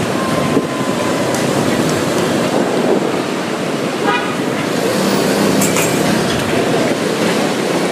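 Steady outdoor road-traffic noise with a short horn toot.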